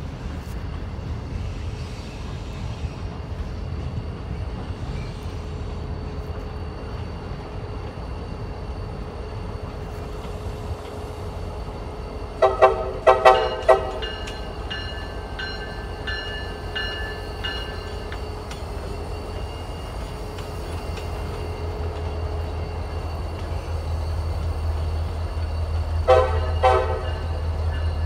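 Two CSX diesel locomotives rumbling as they approach, sounding their air horn in a quick series of short blasts about halfway through and again in another burst near the end. The engine rumble grows louder as they draw near.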